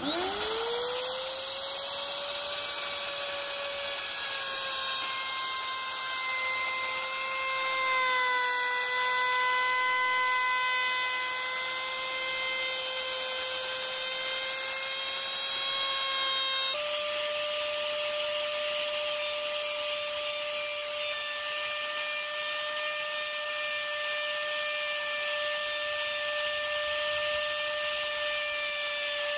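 Compact trim router starting up, its motor spinning up to speed with a rising whine, then running steadily as the bit cuts wood, the pitch dipping slightly while it cuts. About halfway through it cuts abruptly to a steady, slightly higher whine of the router running.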